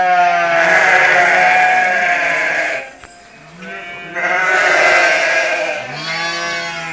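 A flock of sheep and lambs bleating loudly, several calls overlapping, in three bouts: the first lasting nearly three seconds, another about four seconds in, and a third near the end.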